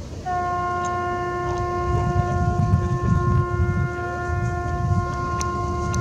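Ship's horn of the vessel Lady Comeau III sounding one long blast at a single steady pitch, starting abruptly a moment in and holding without a break. A low rumble runs underneath.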